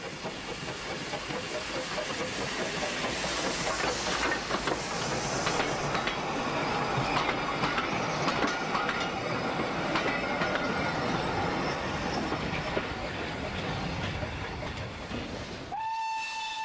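Victorian LB&SCR 'Terrier' tank engine passing close by with a coach, its wheels clicking rapidly over the rail joints amid steam hiss, louder in the middle as it goes past. About a second before the end, a locomotive steam whistle starts a steady blast.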